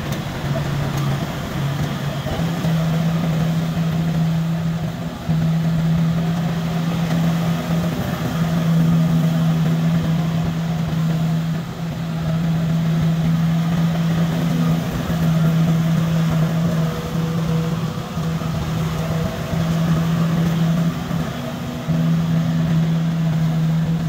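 A rice combine harvester's engine running steadily with a loud, even drone and mechanical noise.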